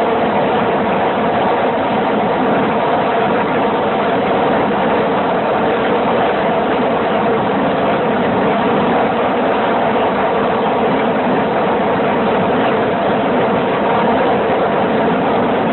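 A steady, unbroken engine drone, holding an even level throughout.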